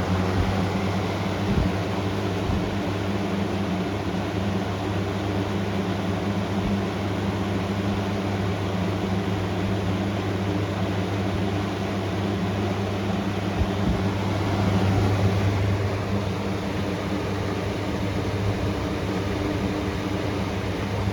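A 1998 Lakewood model 227 box fan running steadily: a low electric motor hum under the even rush of air from its blades.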